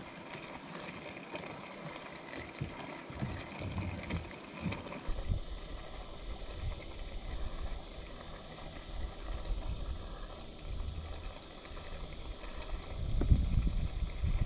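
Wind rumbling on the microphone outdoors by open water. It gets heavier about a third of the way in and gusts louder near the end.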